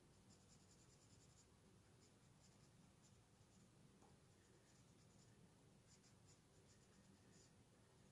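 Faint scratching of a watercolour pencil colouring on card, in quick runs of short strokes with brief pauses between them.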